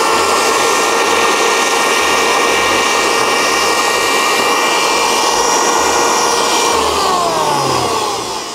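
Electric grain mill's 1 kW, 19,000 rpm motor running at full speed with a steady high whine. About seven seconds in it is switched off, and the whine winds down with falling pitch.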